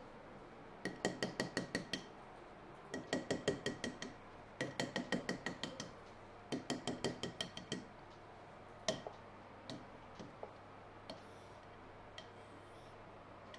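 Chalk tapping against a blackboard as dotted lines are drawn: four quick runs of light taps, about seven or eight a second, followed by a few single taps spaced apart.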